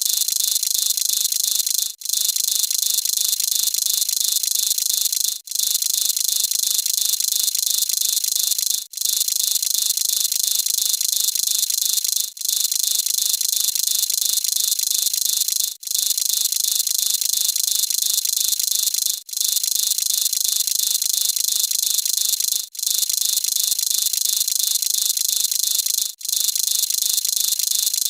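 Synthesized high-pitched hiss, a steady filtered noise tone with nothing in the low range. It breaks off for an instant about every three and a half seconds, then resumes the same.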